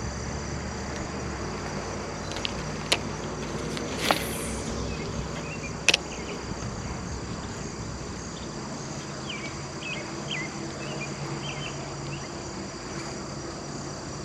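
Crickets or other insects chirring steadily at a high pitch over a faint low hum. A few sharp clicks come about 3, 4 and 6 seconds in, the second followed by a brief hiss, and short high chirps follow later.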